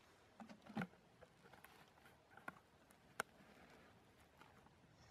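Faint clicks and rustles of a cut-off plastic bottle being set over a rose cutting and twisted into loose soil, with a sharper click about a second in and another about three seconds in.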